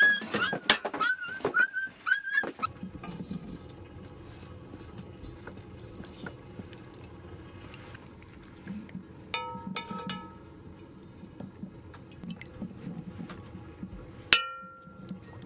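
A dog yelping in a quick series of short, high calls for the first two and a half seconds. Then metal pots and a kettle clink against each other a few times, with one sharp, ringing metal clank near the end.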